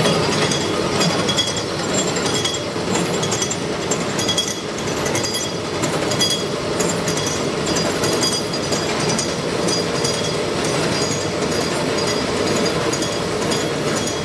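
Horizontal milling machine running, its arbor-mounted cutter milling a metal workpiece under flowing coolant as the table is hand-fed: a loud, steady cutting noise.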